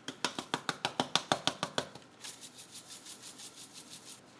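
A jar of dried oregano shaken over food in quick strokes: rapid clicks about eight a second, louder for the first two seconds, then a softer, quicker rattle.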